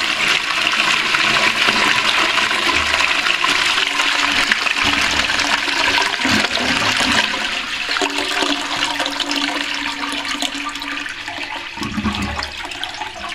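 Armitage Shanks Sandringham close-coupled toilet flushing: water rushing steadily through the bowl, easing slightly toward the end.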